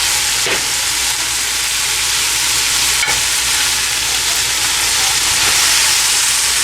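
Pan of chili chicken sizzling steadily as it is stirred, fried chicken pieces, green pepper and onion frying in chili, garlic and soy sauce. Two light clicks of the stirring utensil against the pan, about half a second and three seconds in.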